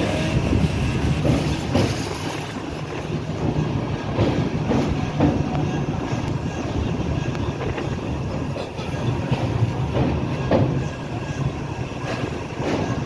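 Train crossing a steel truss bridge, heard from aboard: a steady low rumble with the wheels knocking irregularly over the rails.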